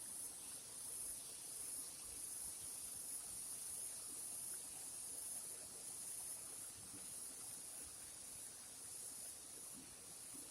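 Insects chirring: a steady, high-pitched drone that pulses gently in strength, heard faintly.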